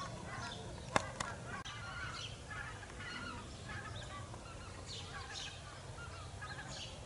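Flock of wild geese calling overhead: many overlapping honks, with the call of a greater white-fronted goose (speckle belly) among them. Two sharp clicks about a second in.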